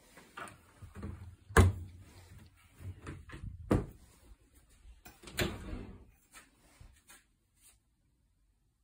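Kitchen appliance doors being shut and opened: a run of knocks and clunks. The loudest comes about a second and a half in, two more strong ones near four and five and a half seconds, then a few lighter clicks. The fridge-freezer door is closed and the dishwasher door is pulled down open.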